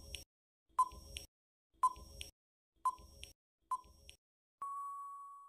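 Quiz countdown timer sound effect: four soft tick-tock clicks about a second apart, then a steady beep near the end that signals time is up.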